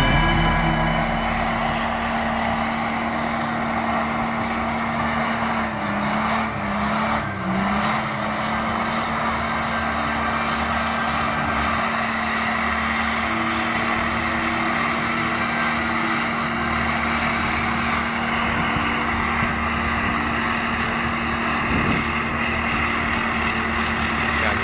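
Off-road SUV engine running hard and steady under load as the vehicle climbs a muddy slope with its wheels spinning. The engine note sags briefly and recovers about six to eight seconds in.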